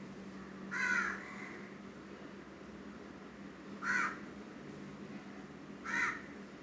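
A crow cawing three times, a couple of seconds apart, each caw short, over a faint steady low hum.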